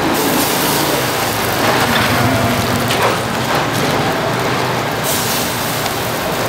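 Korean savoury pancakes (jeon) frying in oil on a flat griddle: a steady, loud sizzle and hiss, swelling at times.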